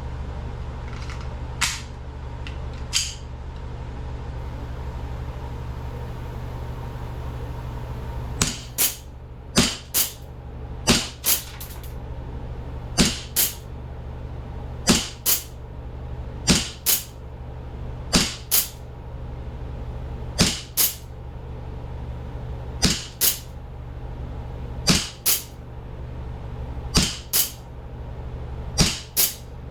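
Replica Springfield 1911 CO2 pistol firing repeatedly at a pumpkin, sharp cracks. A few single shots come first, then from about a third of the way in the shots come mostly in pairs about half a second apart, every second or two. A steady low hum runs underneath.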